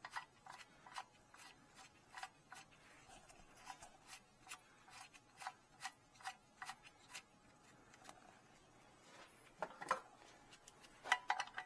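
Faint, light clicks about two a second while the oil drain plug is being run back into the oil pan by hand, with a few louder clicks and clatters about ten seconds in.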